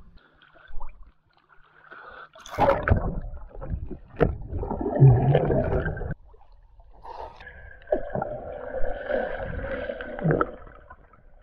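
A splash as a swimmer and his camera plunge into a spring, then muffled underwater rushing and bubbling heard from below the surface, in two stretches with a short lull between them.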